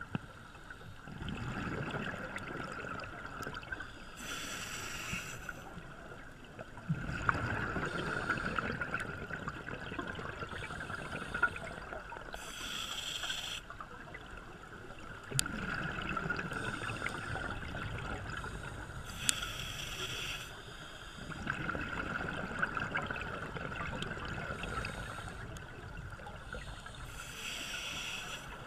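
Scuba diver breathing through a regulator underwater. A short hiss of inhalation comes about every seven or eight seconds, and each is followed by a longer rumble of exhaled bubbles.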